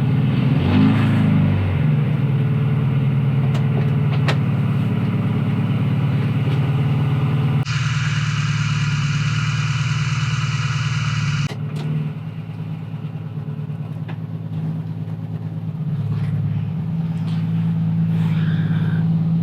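Mercedes 190E engine running just after its first start in months. It is blipped up in revs about a second in, then settles to a steady idle. For a few seconds in the middle a hiss rises over the engine note and then cuts off suddenly.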